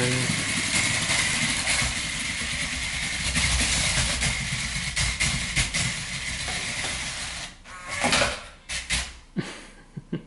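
WowWee CHiP robot dog's wheel motors whirring steadily as it drives across a hardwood floor, with a faint thin whine. It stops about seven and a half seconds in, and a few short clicks follow as it docks onto its charging base.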